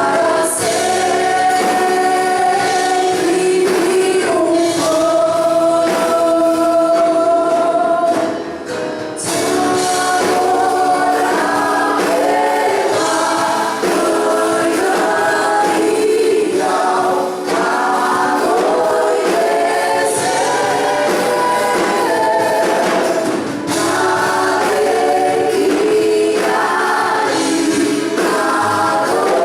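A church worship band and vocal group singing a Portuguese gospel song, several voices holding long notes over the accompaniment.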